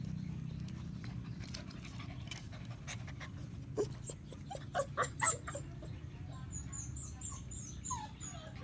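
Puppies yelping: a quick run of five or six short, high yaps about four to five seconds in, then a short falling whine near the end.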